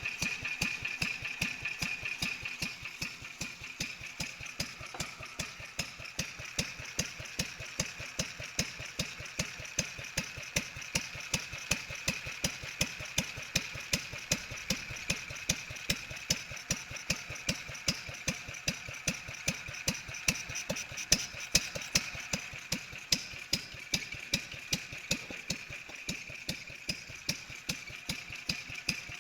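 Restored Lister D single-cylinder stationary engine running steadily, its fast, even beat punctuated by sharper, louder beats at regular intervals.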